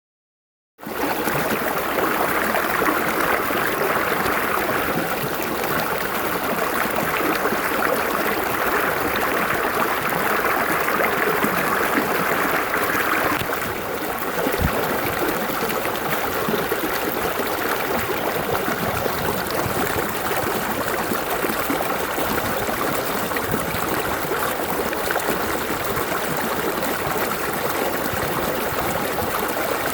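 Running water, a steady stream flowing and trickling. Its brighter, hissier part eases off about halfway through.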